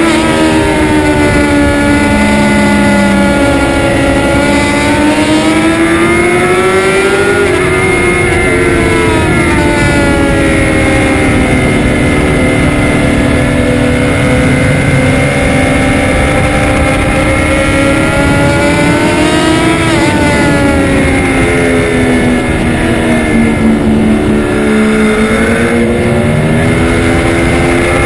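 Sportbike engine at speed on track, its pitch climbing steadily and then dropping sharply as the rider rolls on and off the throttle through corners, with two clear drops about a third of the way in and again about two-thirds in. Steady wind rush on the helmet or bike camera lies under it.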